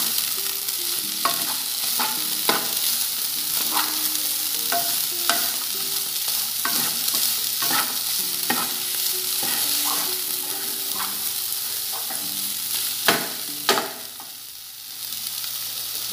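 Diced chicken and green pepper sizzling in a hot frying pan while a wooden spoon stirs them, scraping and tapping irregularly against the pan. Near the end come two sharper knocks of the spoon, then the sizzle briefly drops.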